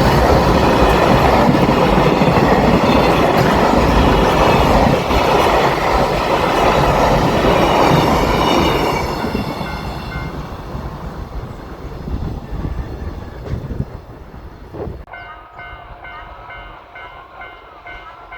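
A freight train behind an EF210 electric locomotive passes over a level crossing, its wagons clattering loudly over the rails before fading away after about nine seconds. Near the end the level-crossing warning bell is heard, ringing in an even repeating pattern.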